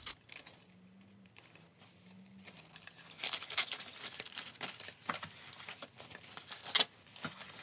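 Packaging being handled: rustling and crinkling with short clicks and light knocks, starting about three seconds in, and one sharp knock near the end.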